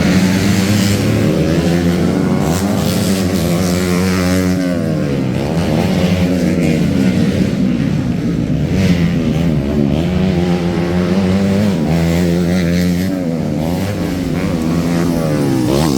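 Motocross bike engines revving hard, the pitch rising and falling again and again, with more than one engine heard at times.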